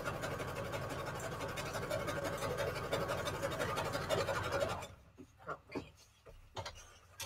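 Electric sewing machine running steadily, stitching through strips of scrapbook paper, until it stops abruptly about five seconds in. After that, only a few short clicks.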